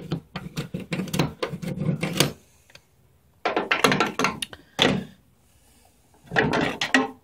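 Metal hand tools clattering and knocking as a toolbox drawer is handled, in three bursts of rattling.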